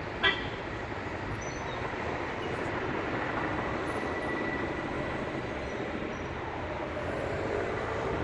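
Firefighting helicopter running, a steady rumbling noise, with a single sharp click a fraction of a second in.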